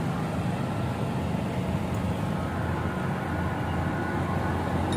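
Steady low engine and machinery rumble, with a faint thin whine joining about two seconds in.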